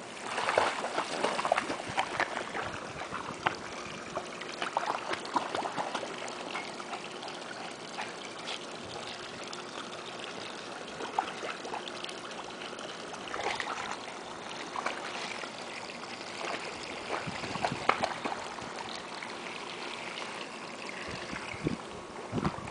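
Water splashing and sloshing as a small dog paddles through a swimming pool. The splashes are louder and busier in the first few seconds and again about three quarters of the way through, with steadier lapping between.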